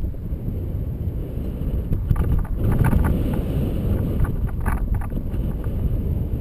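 Wind buffeting the microphone of a camera towed on a line behind a paraglider in flight: a steady low rumble, with a few brief rattling clicks about two seconds in, around three seconds and again near five seconds.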